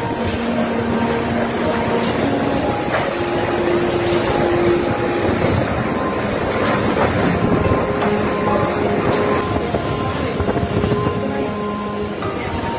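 Strong typhoon wind blowing steadily, with whistling tones that shift in pitch every second or two and a few light knocks.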